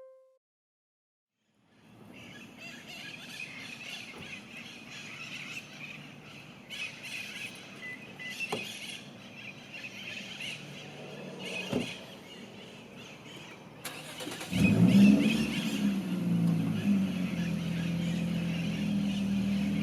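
A Lexus IS250's engine turning over and starting about three-quarters of the way in, flaring up and then settling to a steady idle. Before that there is faint outdoor ambience with a couple of sharp clicks.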